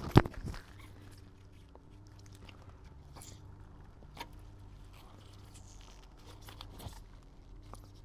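A sharp knock just after the start, then faint clicks and rubbing from handling a removed plastic furnace condensate trap, over a steady low machine hum.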